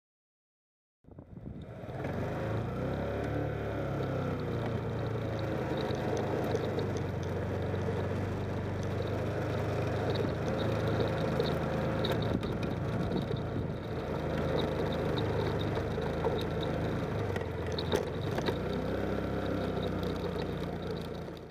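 Motorcycle engine running as the bike is ridden along, starting about a second in, its pitch rising and falling gently over a steady rumble of road and wind noise.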